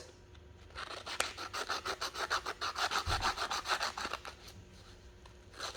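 Fine sandpaper rubbed quickly back and forth over a small-engine spark plug's electrode, in a rapid run of short scraping strokes lasting about three and a half seconds. The plug is being cleaned up because it looked fouled and did not appear to be firing.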